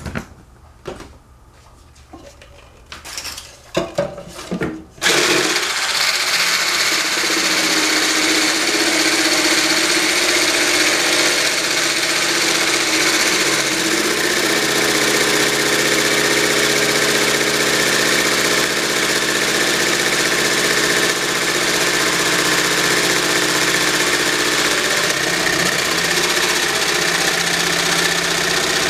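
Handheld electric stick blender whipping cream in a tall cup. It switches on about five seconds in and then runs steadily with a loud motor whine. A few knocks of handling come before it starts.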